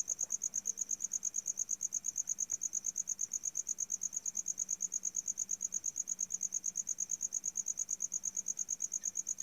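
Insect chirping in a steady, rapid rhythm of about nine high-pitched pulses a second.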